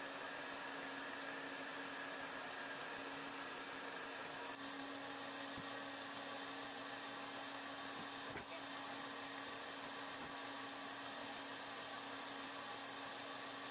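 Steady whirring drone of a fan-like machine with a constant low hum, and a few faint knocks around the middle.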